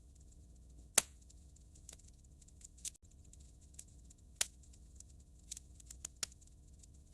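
Wood fire in a fireplace crackling: irregular sharp pops and snaps, the loudest about a second in and again midway, over a faint steady hiss.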